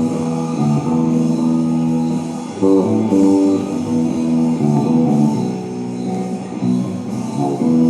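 Tagima TbM-5 five-string electric bass played, a continuous line of plucked notes, with a quick run of notes a little under three seconds in.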